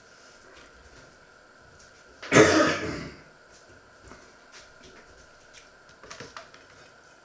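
A person coughs once, a little over two seconds in, a short loud burst that fades within about a second. Near the end come a few light clicks and knocks as a hand mixer is picked up from beside a steel bowl.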